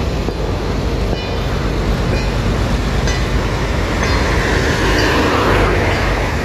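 Street traffic noise: a steady rumble, with a car approaching that swells louder about four seconds in. Short high chirps recur about once a second over it.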